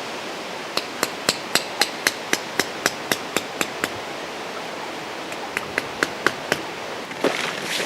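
Hammer blows in quick succession, sharp and ringing, about four a second: a run of about a dozen, a short pause, then six more, over a steady rushing noise.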